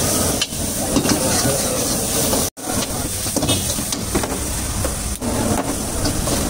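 Chicken fried rice being stir-fried in a wok over a gas burner: a long steel ladle scraping and knocking against the wok over a steady frying hiss. The sound cuts out for an instant about two and a half seconds in.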